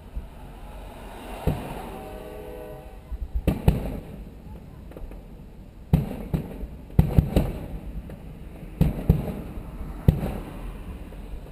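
Aerial fireworks shells bursting, a series of sharp bangs: one about a second and a half in, a couple near four seconds, then a quicker run of bangs from about six to ten seconds.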